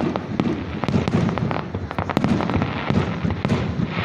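Aerial fireworks finale barrage: rapid shell bursts, several a second and overlapping, over a continuous low rumble.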